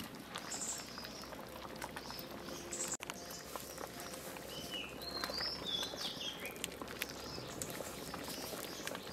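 Small birds chirping in short high calls every second or two, over faint clicks and pouring as porridge is ladled into a glass bowl.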